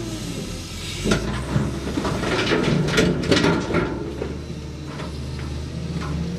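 Komatsu WA320 wheel loader's diesel engine running while it tips a bucket of dirt and stones into a dump truck, with a rattling clatter of material landing in the truck's bed from about one second in to about four seconds.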